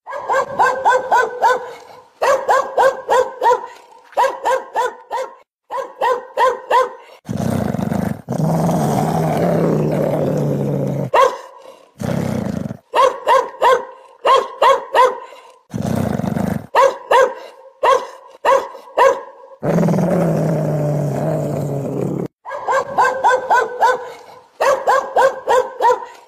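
An angry dog barking in quick runs of about four or five barks a second, broken several times by deep growls a few seconds long. This is aggressive, threatening barking and growling.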